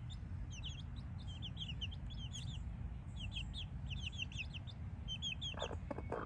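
Brahma chicks peeping: rapid clusters of short, high, falling chirps, with a few short lower calls near the end.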